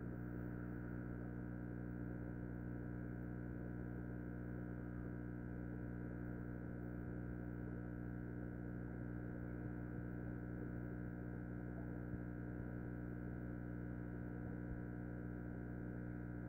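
Aquarium air pump humming steadily, a low even drone made of several steady tones.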